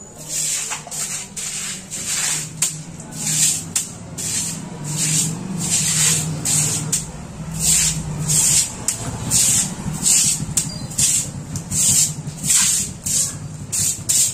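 A short hand broom swept in quick, even strokes across a stone-tiled floor, each stroke a brief bristly swish, about two a second.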